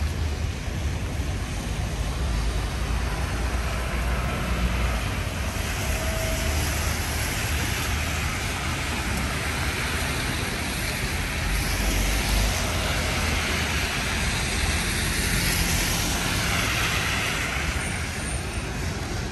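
Steady hiss of heavy rain mixed with city street traffic and a low rumble, with vehicles swelling past on the wet road around the middle and again later on.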